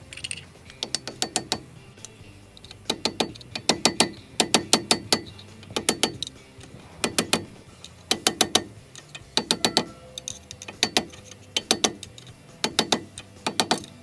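New metal hub dust cap being tapped home on a front wheel hub with a screwdriver: quick runs of three to five sharp metal taps, repeated about a dozen times.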